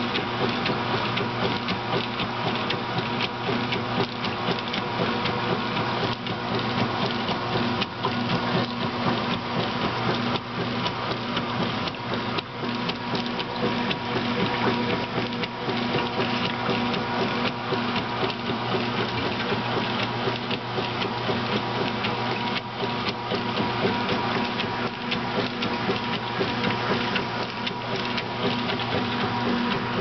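Kenmore 800 top-loading washing machine, Whirlpool-built, agitating its wash load. A steady motor hum runs under the churn of water and clothes in the tub.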